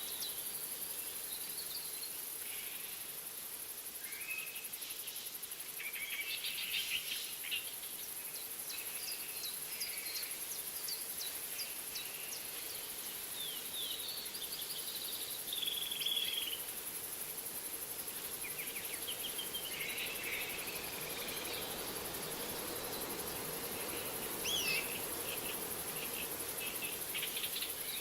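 Savanna ambience: a steady, very high-pitched insect drone, with scattered bird calls throughout. The calls include quick series of short notes, chirps and a few sliding whistles.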